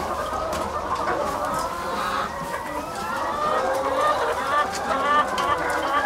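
A large flock of laying hens clucking and calling all at once, a continuous dense chatter of many overlapping calls.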